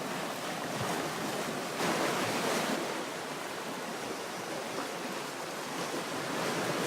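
Black Sea waves washing onto the shore, one louder surge about two seconds in.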